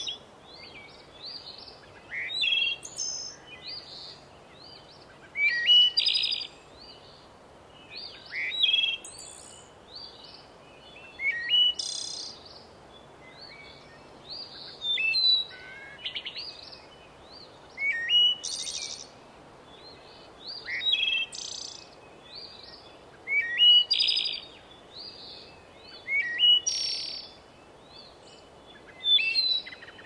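A songbird singing a short phrase of chirps and whistles, repeated about every three seconds, over a steady background hiss.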